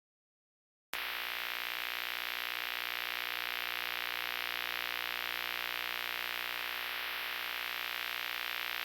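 Steady static hiss with a faint electrical hum beneath it, cutting in abruptly about a second in after dead silence and holding unchanged.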